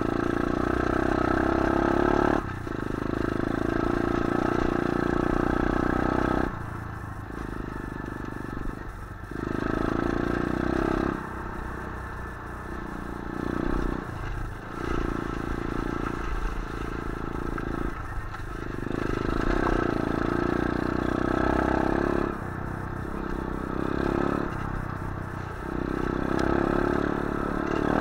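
125cc pit bike's single-cylinder engine running under way, the throttle opened and closed so that the engine note swells and drops back every few seconds, with rattling from the bike over rough ground.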